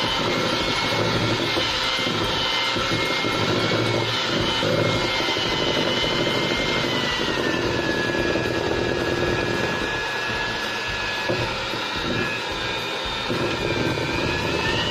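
Electric hand mixer running steadily, its beaters whipping butter and powdered sugar into buttercream in a stainless steel bowl. The motor's whine drops slightly in pitch about halfway through and climbs back near the end as the load on the beaters changes.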